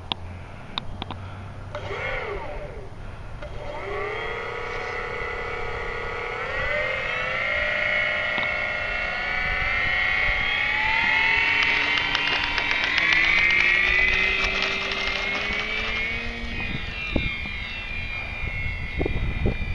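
Electric motor and propeller of a ParkZone P-47 RC model plane whining through a takeoff run and climb-out. After a short blip, the pitch rises in steps as the throttle is opened, is loudest a little past the middle, then holds steady.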